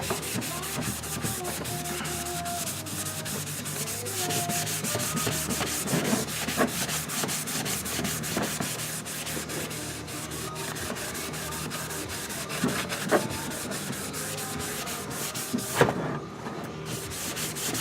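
A red Scotch-Brite pad scrubbing the oxidized plastic front fender of a Honda XR80, wet with Simple Green: a steady run of rapid back-and-forth rasping strokes that stops briefly near the end. The scrubbing is lifting dirt and oxidation off the sun-faded plastic.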